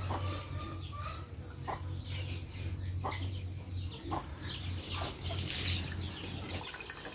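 Chickens clucking: a string of short calls, roughly one a second, over a steady low hum.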